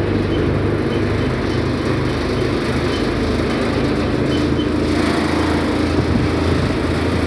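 A tractor-driven paddy thresher running: the engine's steady hum mixed with the machine's drone, holding an even pace.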